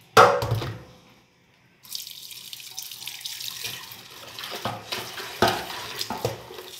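A sudden clank with a short ring at the start, then after a second of quiet, tap water runs into a sink while a pressure cooker is rinsed and handled, with irregular louder splashes and strokes.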